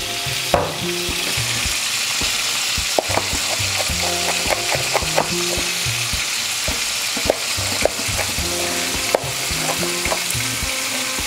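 Bacon and cherry tomatoes frying in olive oil in a pan, a steady sizzle, with irregular knife strikes on a wooden cutting board as chili is chopped.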